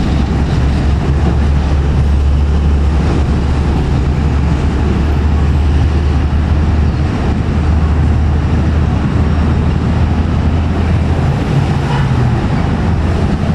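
KRL Commuter Line electric train running along the track: a steady low rumble with a constant deep hum underneath.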